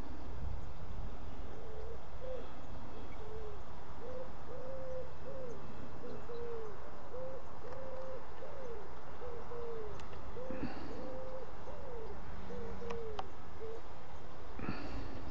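A pigeon cooing, a long run of short low hoots a little more than one a second, over a steady low rumble.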